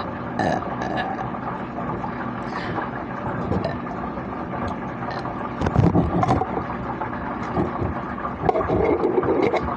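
A person burping after chugging a can of Mountain Dew: two loud low burps, one about six seconds in and a longer one near the end, over a steady background hum.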